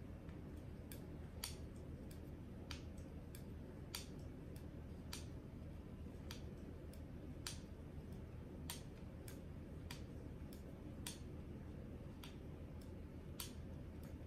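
Faint, irregular light clicks about once a second over a low steady hum, from honing a paring knife on a KME guided sharpening system at its final 0.1-micron polishing stage.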